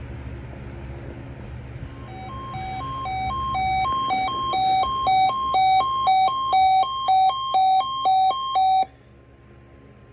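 Weather radio receiver's alert alarm set off by the weekly test: two alternating tones pulsing about twice a second, growing steadily louder, then cutting off suddenly near the end.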